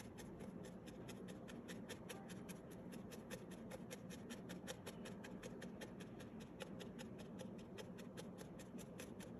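Barbed felting needle stabbing rapidly in and out of wool roving: a faint, even run of soft scratchy pokes, about five a second, as the wrapped wool is felted firm.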